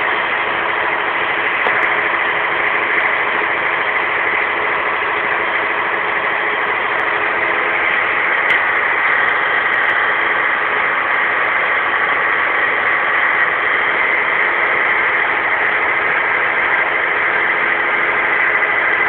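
A machine running steadily: a constant, even drone with several steady hum tones.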